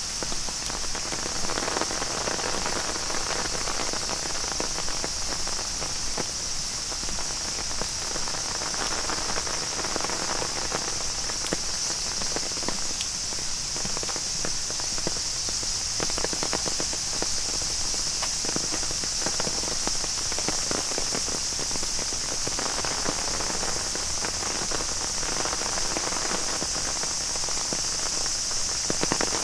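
Steady rain ambience during a walk: a constant high hiss with many small drip-like ticks, and footsteps underneath.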